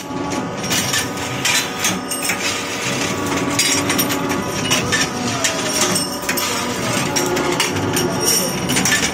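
Hydraulic thread rolling machine with an automatic bar feeder running: a steady machine hum under frequent metallic clatter and knocks as the steel rods are fed through and dropped.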